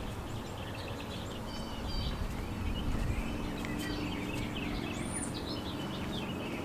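Small birds chirping here and there over a low, steady background hum.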